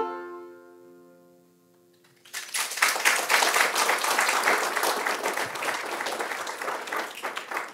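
The song's last strummed chord on the stringed instrument rings out and fades away over about two seconds. Then the audience breaks into applause, the loudest part, which lasts until near the end.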